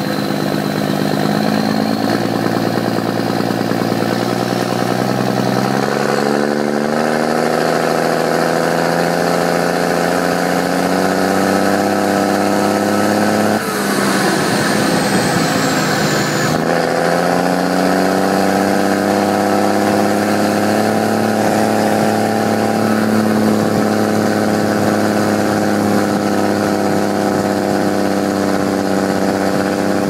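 John Deere 6620 tractor's turbocharged six-cylinder diesel running through a straight-pipe exhaust, heard from inside the cab. The engine pulls up in steps over the first few seconds, drops off for a few seconds about halfway through, then climbs again and holds steady, with a high turbo whistle that slowly falls in pitch just before the drop.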